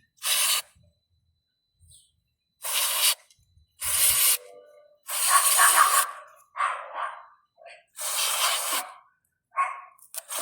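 Aerosol spray cleaner hissing in about five short bursts, the longest near the middle, as it is sprayed into the 2000 Dodge Durango's engine computer connectors to clear suspected salt-air corrosion. A small dog barks a few times in the second half.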